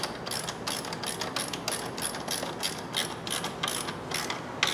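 Ratchet wrench clicking as it tightens a car battery's negative terminal clamp: a quick, uneven run of sharp clicks, about four or five a second.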